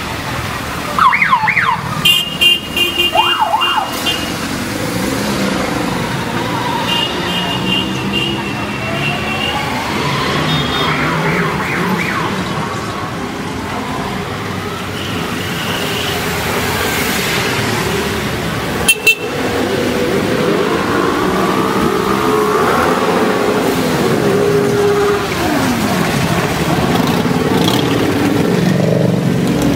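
A procession of motorcycles passing, engines running with rising revs, and a siren wail and rapid repeated horn beeps in the first few seconds and again around eight seconds in. A sharp knock about two-thirds of the way through.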